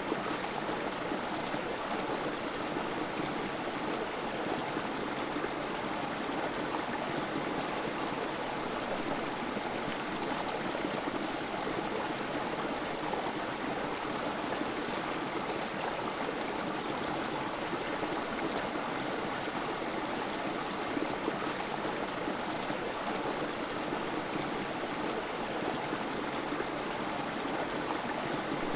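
Creek water trickling and spilling over rocks in a small cascade: a steady, even rush of water.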